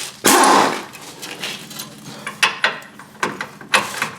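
Impact gun hammering in one short burst of about half a second, a quarter second in, running a nut down on the front suspension; scattered metallic clicks and knocks of tools and socket follow.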